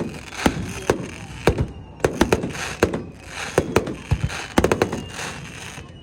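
Fireworks display: aerial shells bursting in a rapid, irregular string of sharp bangs, about two a second, with a hissing crackle between them.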